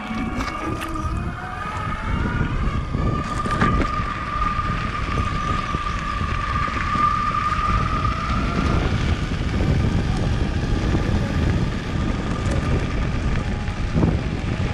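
Electric skateboard rolling over a gravel trail: a dense low rumble of the wheels on gravel with wind on the microphone. A whine, likely from the belt-drive motor, rises slightly in pitch and fades out about nine seconds in.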